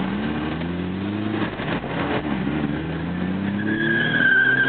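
Car engine heard from inside the cabin while drifting, its revs rising and falling as the throttle is worked on and off. About three and a half seconds in, a steady high tyre squeal joins it.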